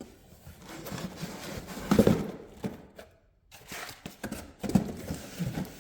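Packaging and boxed parts being handled: rustling with a few knocks as items are picked up and set down, the loudest about two seconds in and another near the end.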